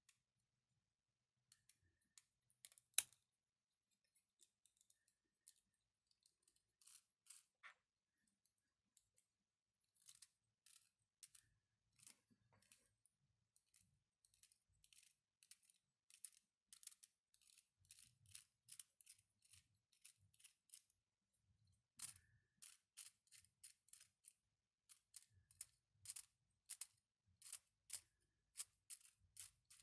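3D-printed plastic mechanical counter clicking as it is worked by hand. Light, sharp clicks come scattered at first, with one louder snap about three seconds in, then quicken into a run of two or three clicks a second over the last third.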